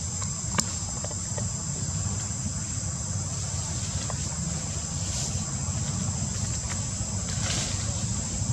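Outdoor forest ambience: a steady high insect drone over a low rumble, with a few faint clicks.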